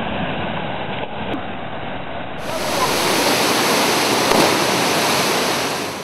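Steady rushing noise of a big jungle waterfall, the Pulapanzak falls, heard up close in the mist. About two and a half seconds in it turns louder and hissier.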